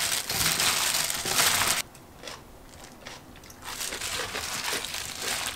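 Plastic-gloved hands tossing and squeezing chili-coated radish cubes for kkakdugi in a steel mixing bowl: a wet crunching and crinkling that stops abruptly about two seconds in. Fainter rustling of the gloves comes back near the end.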